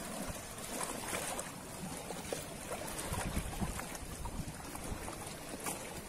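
Ocean waves washing on a shore: a steady rushing noise that swells and eases slightly.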